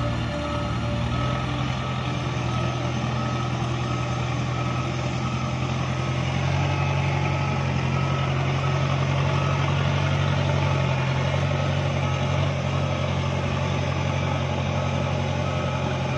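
Heavy vehicle engine running steadily, with a reversing alarm beeping at regular intervals.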